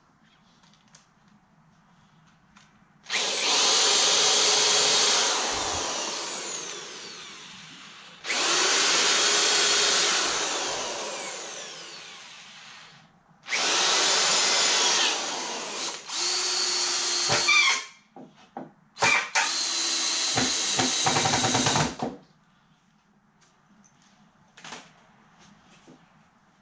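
Handheld power drill driving screws into the wooden table legs. The motor whines in five separate runs of about two to four seconds each, with short pauses between them, and some runs trail off as the screw seats.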